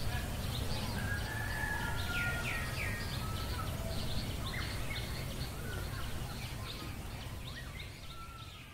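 Birds chirping and calling: many short, quick chirps with a few longer whistled notes, over a steady low rumble of background noise. The sound fades out near the end.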